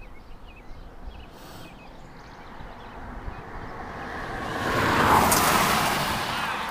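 A car passing on the road, its tyre and engine noise swelling to a peak about five seconds in and then slowly fading.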